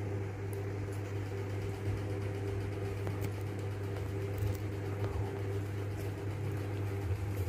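Steady low mechanical hum, like a fan or motor running, with a few faint light ticks over it.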